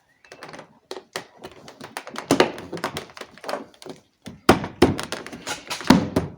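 Irregular clicks, taps and thunks of the door lock being fitted back into a car's front door by hand, with the sharpest knocks in the second half.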